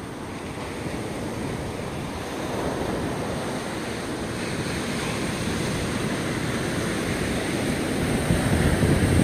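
Ocean surf breaking and washing up a sandy beach, a steady rush that grows louder toward the end, with wind rumbling on the microphone.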